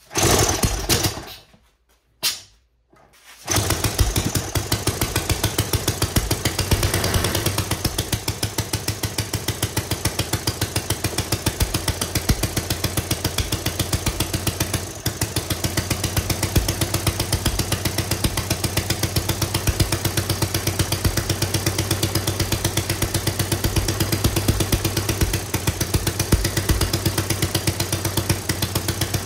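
Homemade 3D-printed single-cylinder four-stroke engine being pull-started by a cord on its hub: a couple of short pulls, then it catches about three and a half seconds in and runs with a steady, even firing beat.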